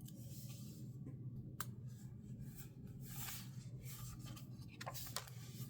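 Soft paper rustling and rubbing as a sticker is peeled from a sticker-book sheet and pressed onto a journal page, with a sharp click about one and a half seconds in and a couple more near the end, over a steady low hum.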